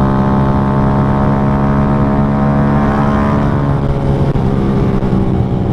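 Underbone motorcycle engine running at a steady cruising speed, an even drone that holds one pitch, over low road and wind noise.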